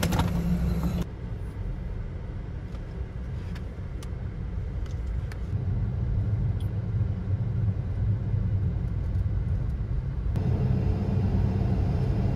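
Car driving along a sealed road, heard from inside the cabin: a steady low rumble of engine and tyres that grows a little stronger about halfway through.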